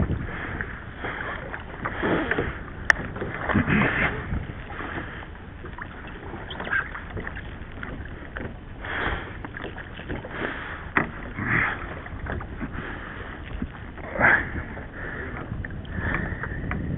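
Water lapping and splashing against a kayak's hull, in soft irregular swells every second or two, with one sharp click about three seconds in.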